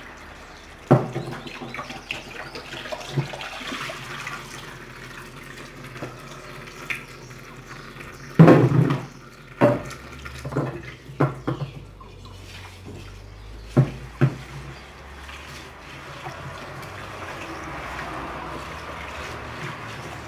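Tap water running into a laundry sink, with splashes and knocks as things are washed and handled in it; the loudest clatter comes around nine seconds in and again near fourteen seconds.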